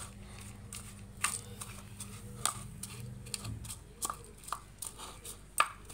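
Steel spoon stirring chopped onion and crunchy daal sev in a plastic bowl, with irregular light clicks of the spoon against the bowl.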